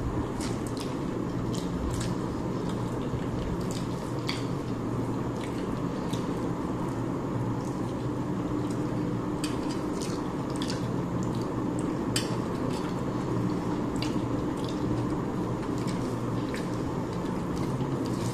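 Eating sounds from people eating rice and fish curry by hand: scattered short wet clicks of chewing and lip smacking, with the odd tap on a plate, over a steady low background hum.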